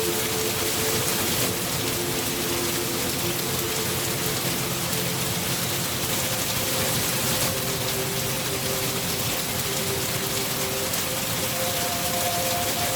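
Steady, even rain falling, with faint held low tones underneath that shift to new pitches a few times.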